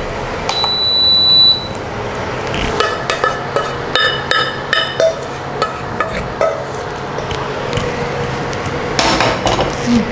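Stainless steel bowl knocking and clinking against an iron kadhai as boiled dal is tipped out of it: a run of sharp metallic knocks, some ringing briefly, with a thick cluster of clatter near the end.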